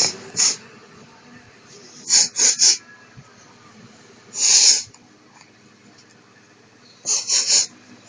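A man sniffling sharply through his nose in quick runs. There are two sniffs at the start, three about two seconds in, one longer sniff about four and a half seconds in, and three more near the end.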